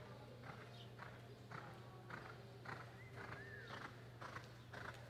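A horse's hoofbeats in an even beat of about two a second, over a faint steady hum, with a short arching chirp about three seconds in.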